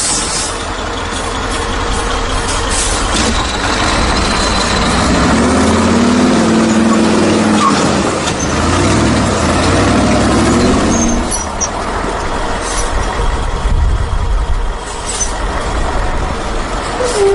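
A truck's engine running over steady mechanical noise. Its pitch rises and falls through the middle of the stretch, as the engine speeds up and slows down.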